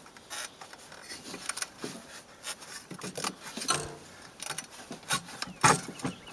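Rubber drive belt of a Ski-Doo snowmobile rubbing and scraping against the metal sheaves of the secondary clutch as it is worked on by hand, with irregular light knocks and rubs.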